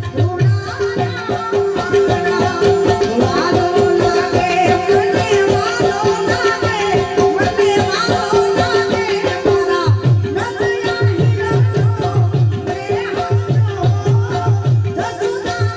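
Amplified Gujarati folk music: a steady drone under a winding melody line, with a fast, driving low drum beat that eases off after the first second and comes back strongly about ten seconds in.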